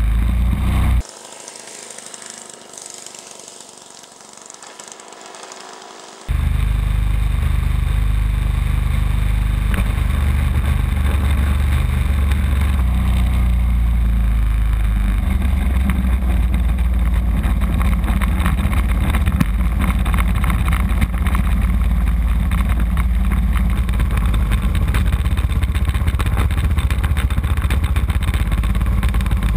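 A radio-controlled model Cessna's engine running, heard through the onboard GoPro's microphone as a loud, steady low rumble mixed with wind and airframe vibration. About a second in, the sound drops abruptly to a much quieter hum. A little after six seconds the loud rumble cuts back in and holds steady.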